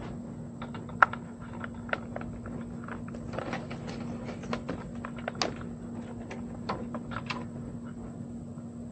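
Scattered small clicks and taps of Ethernet cables and connectors being handled and plugged into network gear, over a steady low hum. The sharpest click comes about a second in.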